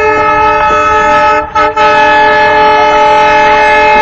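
Horn of a WDM-3A diesel locomotive sounding a long, loud blast of several steady tones together, broken by two short gaps about a second and a half in, then carrying on.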